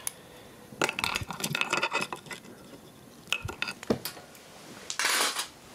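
Small metal parts of an opened hard drive and hand tools clinking and tapping as they are handled, in a string of light knocks, with a short scraping rush about five seconds in.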